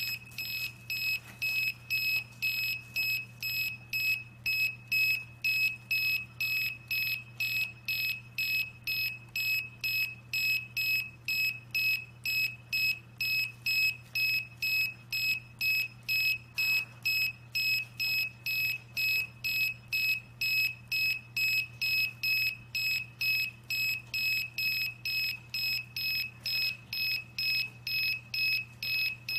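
Laptop keyboard tester's buzzer giving a short high beep each time a key is pressed, about two beeps a second in a steady run. Each beep signals that the key just pressed is working.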